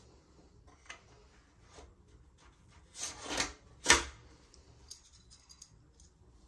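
A bicycle headset bearing cover being slid down the steerer tube and set onto the head tube. A brief scraping slide comes about three seconds in, then one sharp click as it seats, with a few light ticks of handling around it.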